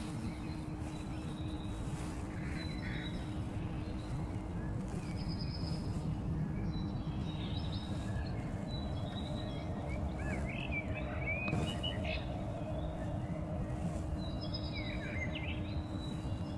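Small birds chirping and calling over a steady low rumble, with two busier bursts of twittering song about two-thirds of the way in and near the end.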